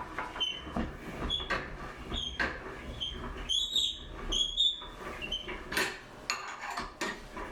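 A run of irregular knocks and clinks from parts being handled, with short high squeaks, most of them about halfway through.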